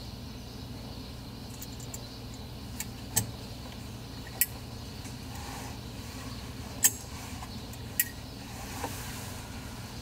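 A handful of sharp metallic clicks as a custom Zippo lighter is handled and its hinged lid flipped open, the loudest about seven seconds in, over a steady low hum.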